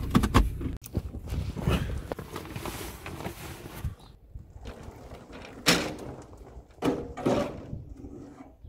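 A car engine's low running stops about a second in, followed by a few thuds and knocks with rustling between them as gear bags and a dirt bike are handled and loaded.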